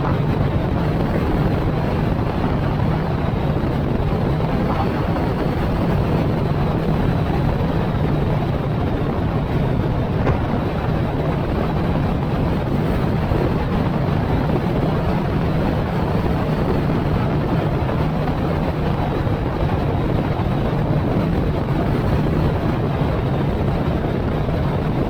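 Steady road and engine noise of a car being driven, with wind noise on the microphone.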